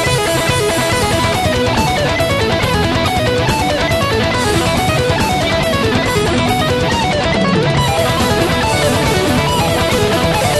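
Amplified electric guitar played fast, a busy run of quickly changing notes, with a steady low rhythm underneath.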